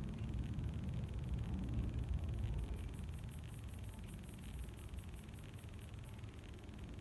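Rapid, fast clicking from a mobile phone, over a low rumbling hiss.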